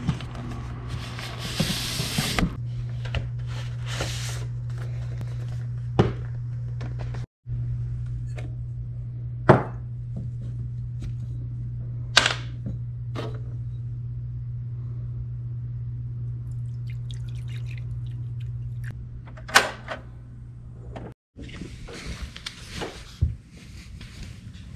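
Handling sounds over a steady low hum: record sleeves rustle as they are flipped at the start, then a handful of separate sharp knocks and clinks, with glassware handled near the middle, and softer small knocks near the end.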